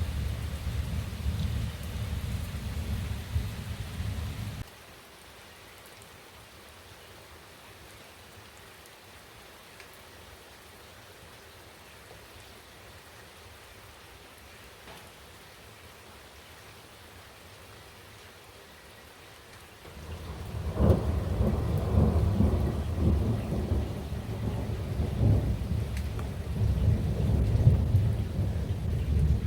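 Thunder rumbling deeply, then cutting off abruptly about five seconds in, leaving a quiet steady hiss of rain. About twenty seconds in a new long rumble of thunder builds, with a few sharper cracks, and rolls on to the end.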